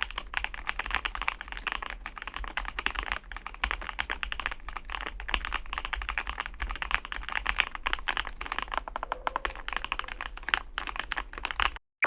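Continuous fast typing on a Chosfox x masro Fox65 gasket-mounted mechanical keyboard: a dense run of keystrokes that cuts off abruptly near the end.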